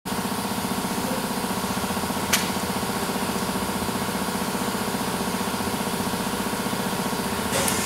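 Vacuum-forming machine running idle: a steady, fast-pulsing mechanical hum, with one sharp click a little over two seconds in and a brief louder sound near the end.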